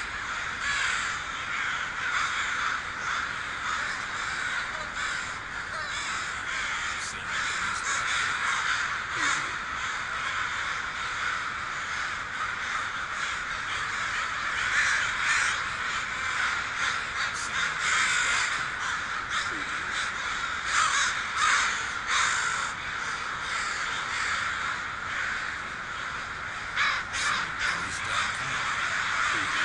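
A flock of crows cawing without a break, many harsh calls overlapping, with some louder single caws standing out now and then.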